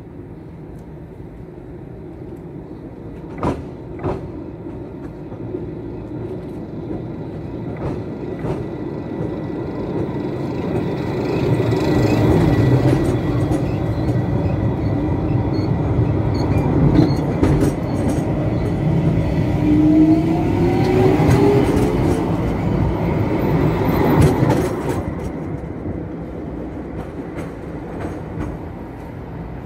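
Electric tram passing: its running noise swells from about ten seconds in, with a motor whine rising in pitch as it speeds up, then fades away. Two sharp clicks a few seconds in.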